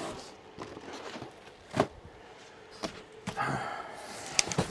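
Cardboard model-kit boxes being handled and set down, with rustling and three sharp knocks, the loudest about two seconds in.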